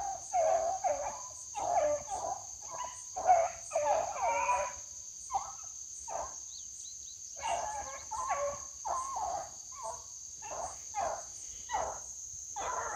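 Beagles baying in short, irregular bursts while running a rabbit's trail through the brush, with a pause of about two seconds midway before the bays resume. A steady high insect drone runs underneath.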